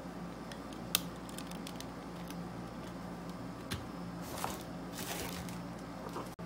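Unboxed accessories and packaging being handled: a sharp click about a second in and another near four seconds, then soft rustling, over a steady low hum.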